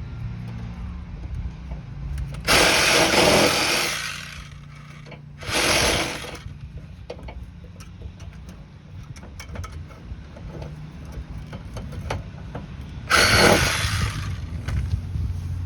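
A power tool run in three short bursts on a seized, stripped sway bar link nut, over a steady low hum.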